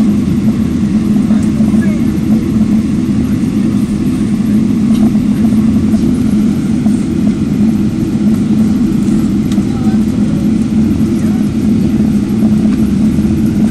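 Steady airliner cabin noise while taxiing: a constant low engine hum.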